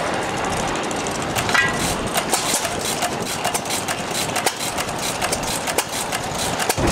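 Antique flywheel-engine drag saw working, a continuous mechanical clatter of sharp, irregular clicks and knocks that grows busier about a second and a half in.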